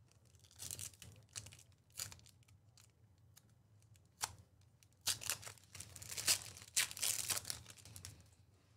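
Trading card packs being torn open: wrappers tearing and crinkling in short scratchy bursts, with the longest and loudest stretch of ripping from about five to eight seconds in.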